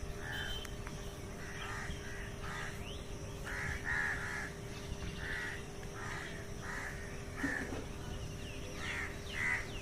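Crows cawing over and over, about a dozen calls with short gaps between them.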